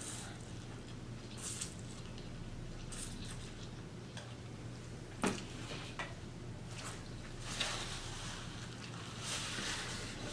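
Close-miked eating sounds: wet chewing and mouth noises with a few sharp clicks of a fork against a food container, the sharpest about five seconds in, over a steady low electrical hum.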